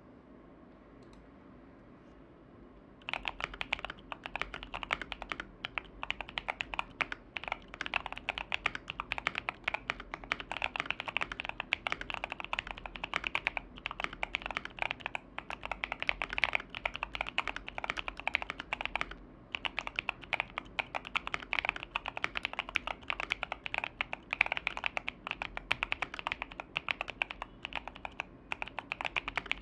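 Mechanical keyboard being typed on at a steady fast pace: a KBD67 Lite with Tecsee Sapphire V2 tactile switches, POM plate and foam-dampened build, giving a deep muted "thocc" on each keystroke. The typing starts about three seconds in, with a few brief pauses.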